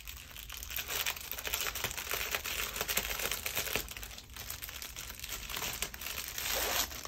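Packaging crinkling and rustling as game components are handled and unwrapped, a dense irregular crackle of many small clicks.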